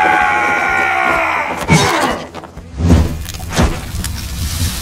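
Logo-intro sound effects: a long held note that falls slightly in pitch, then three heavy booming hits, the loudest about three seconds in, over a low rumble.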